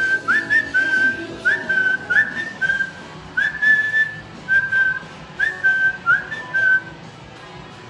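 A man whistling a slow tune of about a dozen short notes, each sliding up into its pitch and held briefly. The whistling stops near the end.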